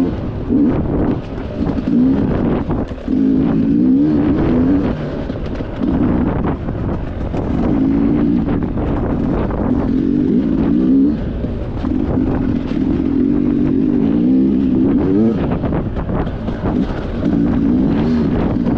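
Sherco enduro dirt bike engine under way, revving up and down again and again with the throttle as the bike works along the trail.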